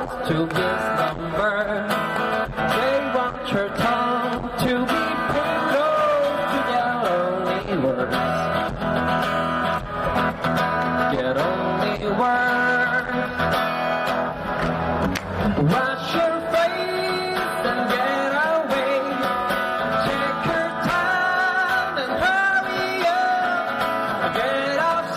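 Pop-rock song performed by a singer with guitar accompaniment; the sung melody has held notes with vibrato.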